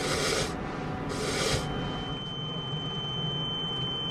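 A hand dinghy pump gives two hissing strokes about a second apart, forcing air through a clogged diesel fuel line. Then a steady high-pitched whine over a low hum takes over: the boat's electric fuel pump running while it is tested, pumping fuel into a cup.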